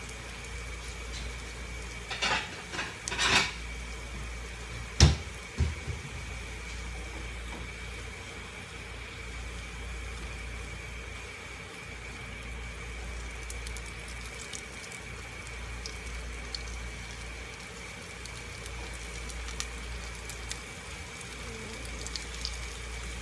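Roti tikkis shallow-frying in oil in a nonstick pan, a steady sizzle. A spatula scrapes and knocks against the pan a few times in the first several seconds, the sharpest knock about five seconds in.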